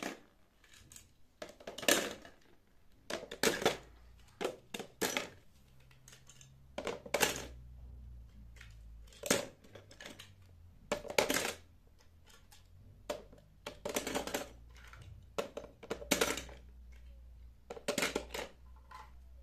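Small toy cars clicking and clattering against one another as they are picked up, moved and set down, in irregular clusters of sharp clicks.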